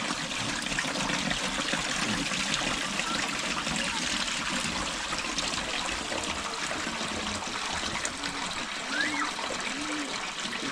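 Water pouring steadily out of a plastic jerrycan in a continuous gushing stream.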